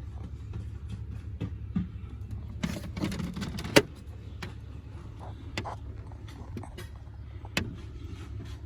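Scattered clicks and knocks, with a sharp click about four seconds in, over a steady low rumble.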